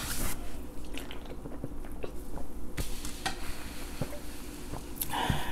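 Someone drinking carbonated soda from an aluminium can: sips and swallows with a few small clicks, and a short, louder rush of noise about five seconds in.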